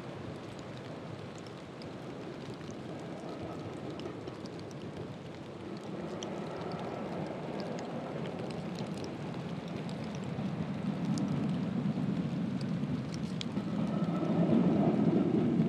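1903 NER petrol-electric autocar approaching from a distance, a steady low rumble of engine and wheels that grows louder toward the end.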